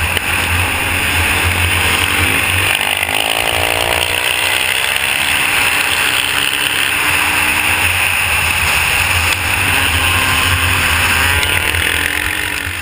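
Motocross bike engines running hard at speed, their buzzing pitch rising and falling, under heavy wind buffeting on the onboard camera's microphone. The sound fades out near the end.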